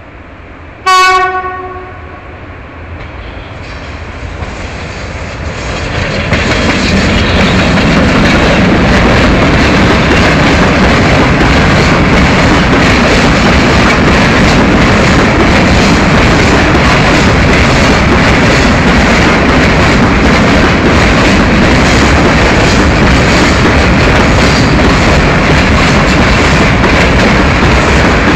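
ET22 electric freight locomotive sounds one short horn blast about a second in. The train of tank wagons then grows louder as it approaches and passes close by with a steady rumble and clatter of wheels over the rail joints.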